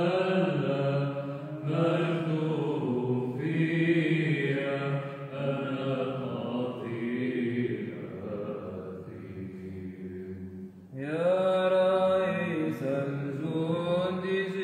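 Byzantine Orthodox liturgical chant: a melodic sung line over a low steady held tone, with a brief break about eleven seconds in before a new phrase begins.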